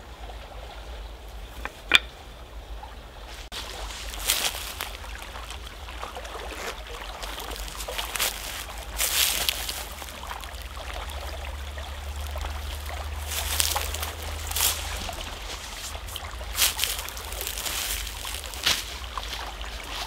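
A forest stream trickling, with irregular brief rustling noises and one sharp click about two seconds in.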